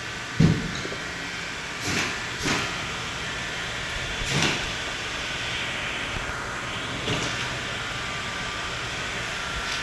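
A few short knocks and metal clinks from tools and parts during bicycle pedal fitting, the sharpest about half a second in, over a steady background hiss.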